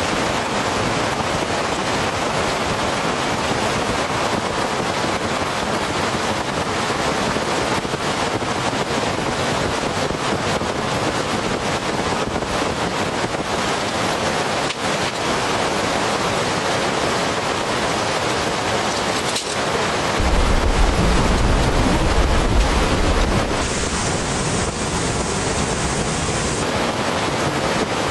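Heavy rain pouring steadily in a thunderstorm. About two-thirds of the way through, a deep low rumble swells for about three seconds.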